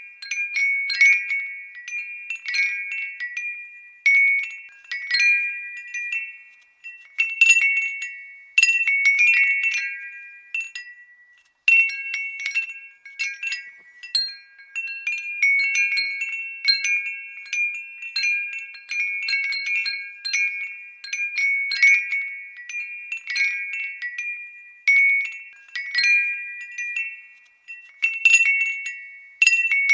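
Glass wind bell (furin) tinkling: the clapper strikes the glass dome again and again, irregularly, every half second to a second, each strike a high, bright ring on a few clear tones that fades quickly. There is a brief lull a little before the halfway mark.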